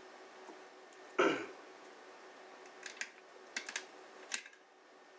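A short rough throat-clearing noise about a second in, then a few light clicks near the end over a faint steady hum.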